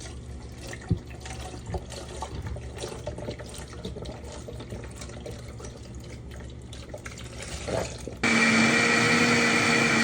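Light knocks and handling sounds, then about eight seconds in an electric blender switches on abruptly and runs steadily, blending cucumber with vegetable broth.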